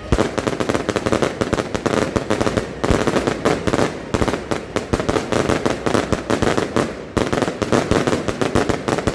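Firework cake battery firing a dense, rapid volley of bangs and crackles, many a second, starting abruptly, with brief pauses about three, four and seven seconds in.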